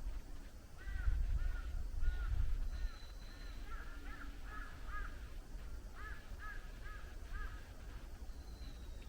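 A bird calling in a run of short, repeated, arched calls, about a dozen in two bursts with a short pause between them. A low rumble, likely wind or handling on the microphone, is loudest during the first couple of seconds.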